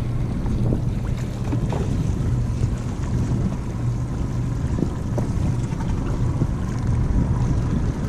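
Boat engine running steadily with a low hum, with wind noise on the microphone.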